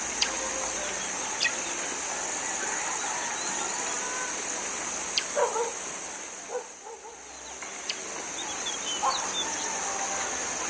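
Rice-field ambience: a steady high-pitched drone of insects, with a few short clucking calls of chickens about halfway through and again near the end, and a few sharp clicks.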